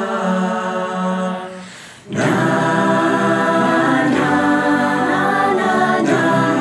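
A cappella virtual choir of men's and women's voices singing in harmony. A held chord fades out about two seconds in, then the full choir comes back in with moving parts.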